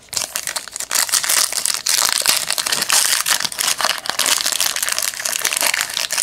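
Plastic trading-card pack wrapper crinkling and crackling as it is torn open and crumpled, a dense run of small crackles.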